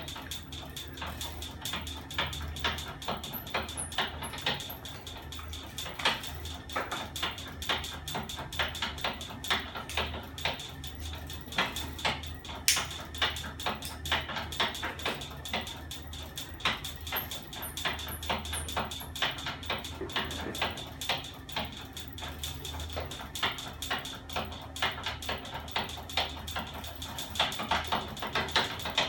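Homemade battery-and-electric-motor-driven magnet 'ornithopter' engine running: its crank-and-arm mechanism makes a fast, continuous run of mechanical clicks and knocks over a steady high motor whine and a low pulsing hum.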